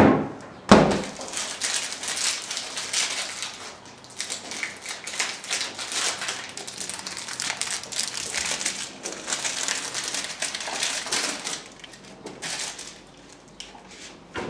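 Two sharp knocks at the start, then the plastic wrapper of an ice lolly crinkling and crackling for several seconds as it is handled under a running kitchen tap; quieter near the end.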